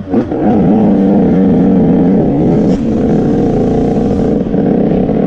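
A 125cc motocross bike's engine running at a steady, fairly high rev. Its note dips sharply for a moment right at the start and then holds level while the bike is down in the dirt after a fall.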